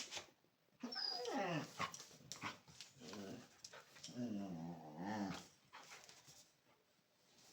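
Dogs growling in play, in two stretches about three seconds apart, with a few short clicks in between.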